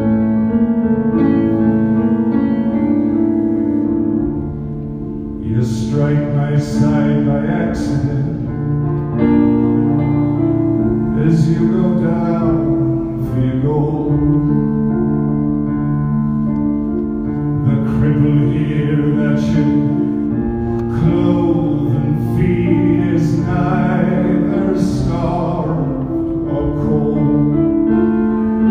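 Live solo piano with a man singing over it. The piano plays held chords alone at first, and the voice comes in about five seconds in.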